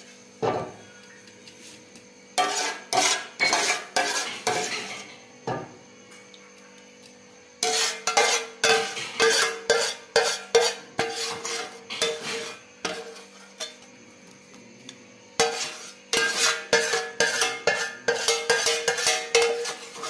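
Steel ladle scraping and clinking against a steel pan and small steel serving bowls as butter chicken gravy is spooned out, in three runs of rapid clinks with short pauses between, over a faint steady hum.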